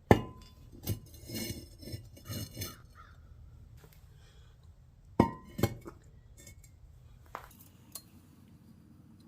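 Hard objects clinking: one sharp clink right at the start and another about five seconds in, each with a brief ringing tone, and a run of lighter clinks and rattles in between.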